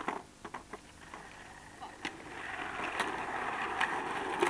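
Skateboard wheels rolling on asphalt, the rolling noise swelling steadily from about two seconds in as the skater comes closer, with a few sharp clicks in the first second.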